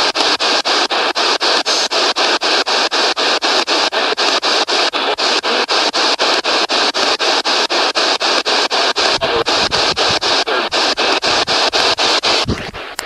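P-SB7 spirit box sweeping radio channels: a loud stream of static chopped into short pieces several times a second, with a faint steady whine under it. The chopping breaks off and the static drops near the end.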